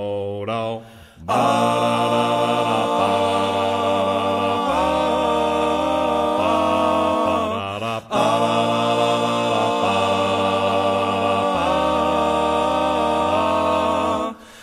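Male vocal quartet singing sustained wordless chords in close harmony, a cappella, moving to a new chord every second or two.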